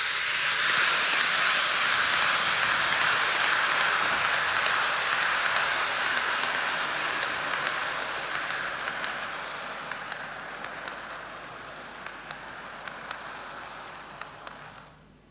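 N-gauge model of a Keikyu New 1000 series electric train running on sectional track: a steady hissing rumble of wheels and motor, with light clicks as the wheels cross rail joints. It fades slowly as the train moves along, and cuts off abruptly near the end.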